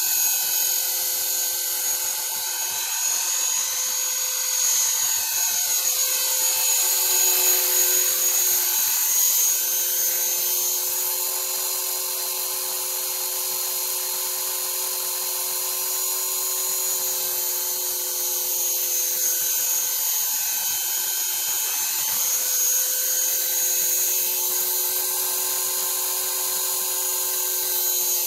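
Small RC helicopter hovering low, its motor and rotor giving a steady high whine. The pitch rises and falls a little as the throttle changes, about a quarter of the way in and again past the middle.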